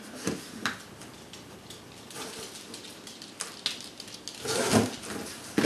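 Knife slitting the packing tape on a cardboard shipping box: scattered scratches and crackles, with two louder scrapes near the end.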